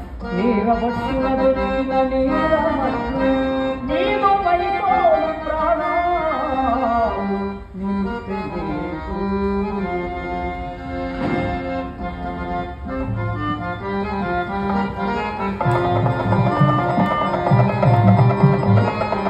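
Harmonium playing sustained reed chords and a melody, with a voice singing a gliding, ornamented line over it in the first half. Tabla joins about three-quarters of the way through, with a steady beat.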